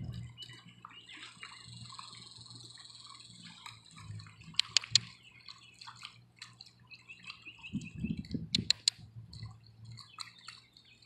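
Light splashing and dripping of shallow water as a small dog wades through it, with a few sharper splashes about halfway through and again about three quarters of the way through.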